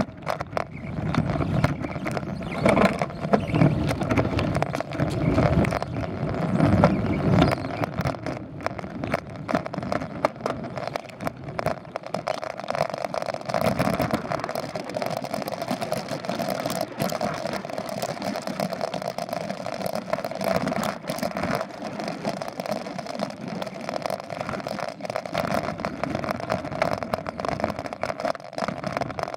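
Mountain bike rolling fast down a dirt trail: tyre noise on the dirt, with frequent sharp knocks and rattles as the bike jolts over bumps. Heavy wind buffeting on the microphone in the first several seconds, easing after that.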